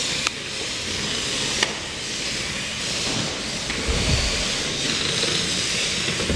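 Air Hogs Hyper Tracks remote-control toy vehicles running on a hardwood floor, giving a steady hissing whir. There are two sharp clicks in the first two seconds and a low thump about four seconds in.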